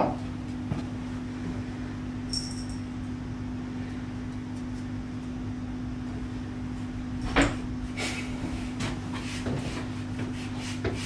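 A steady low hum with a few light knocks and clicks. There is a brief high squeak about two and a half seconds in and a sharper knock about seven seconds in; no violin notes are played.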